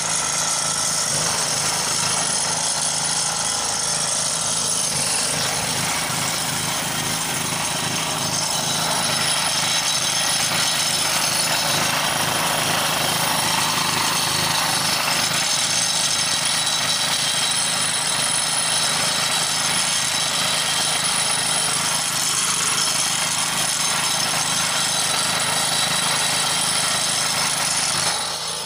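Road line-marking machine running as it sprays water-based marking paint: a steady, loud mechanical racket of its motor and paint pump, with the hiss of the spray, dropping away right at the end.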